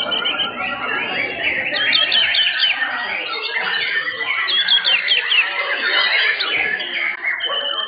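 Several white-rumped shamas singing at once: a dense tangle of fast, overlapping whistled phrases that sweep up and down in pitch.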